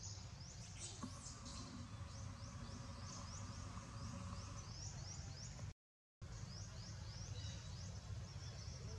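Birds chirping: a long series of short, high, falling notes repeated about two to three a second over a steady low rumble. The sound cuts out completely for about half a second a little past the middle.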